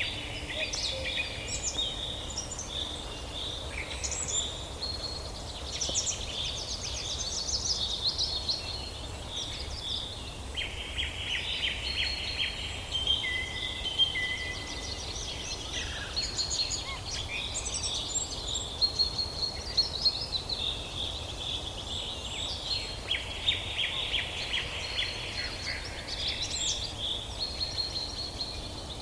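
A chorus of several songbirds singing at once, overlapping trills and chirps, over a steady low rumble.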